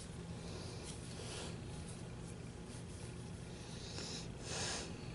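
Soft rustling and rubbing of yarn and knitted wool fabric as a yarn needle is worked through the stitches and the strand drawn through during hand seaming, with one louder rustle about four and a half seconds in. A faint steady low hum lies underneath.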